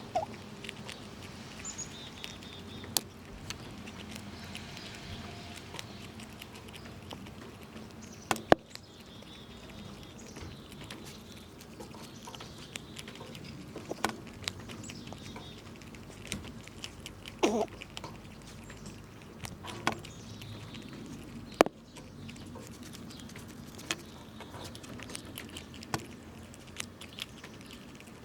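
Squirrels gnawing and cracking nuts: scattered sharp cracks and clicks, the loudest about eight and a half seconds in and again near twenty-two seconds, over a low steady background hum.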